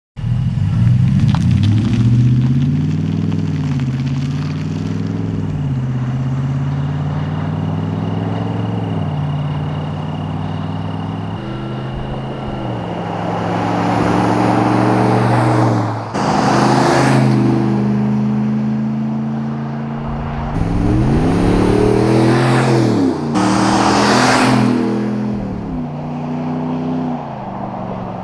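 Fifth-generation Ram 1500's 5.7 HEMI V8 running through a MagnaFlow Street Series cat-back exhaust under mild acceleration: the engine note climbs and drops back with several upshifts. The truck passes close by a little past halfway and again soon after, each time with a louder rush of exhaust and a rise and fall in pitch.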